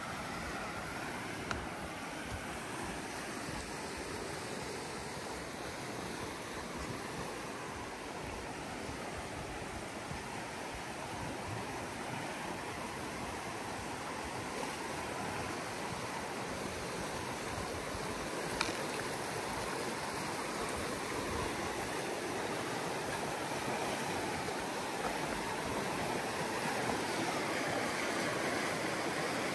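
River rapids rushing steadily, a little louder toward the end, with a couple of faint ticks.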